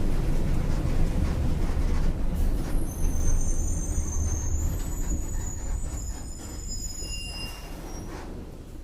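Volksbus 17.230 OD bus's diesel engine running with a low rumble that slowly dies away as the bus slows. High-pitched brake squeals come in from about three seconds in and stop near the end.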